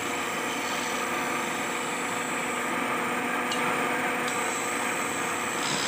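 A wood lathe running while a hand-held chisel scrapes along a spinning wooden cot leg: a steady cutting hiss over the motor's hum. The hiss thins briefly just past the middle.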